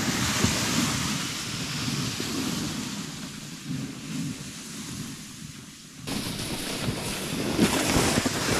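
Wind noise on the microphone over the hiss and scrape of a plastic ice-fishing sled dragged over packed snow. The sound changes abruptly about six seconds in.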